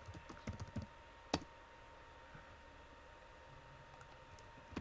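Typing on a computer keyboard: a quick run of keystrokes entering a password, then a single louder click about a second and a half in, followed by quiet with a faint steady hum.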